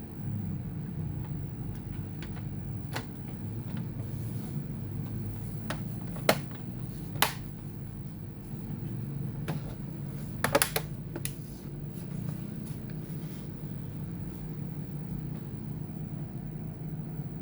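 Scattered small clicks and taps of hands and tools working on a laptop's internals, with a couple of louder clicks around six and seven seconds in and a quick run of clicks about ten and a half seconds in, over a steady low hum.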